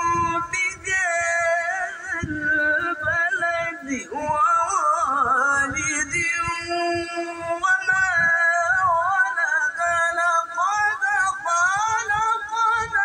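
A man singing or chanting a long melodic line, with held notes and winding, ornamented turns of pitch.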